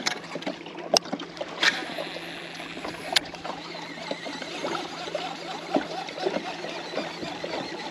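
Water splashing and trickling around a moving fishing kayak, with three sharp knocks in the first few seconds.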